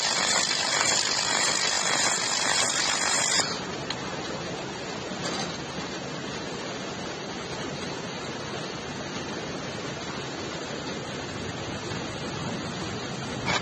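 3 kW laser welding machine hissing steadily, loud and bright for about the first three and a half seconds, then dropping to a quieter, duller steady rush.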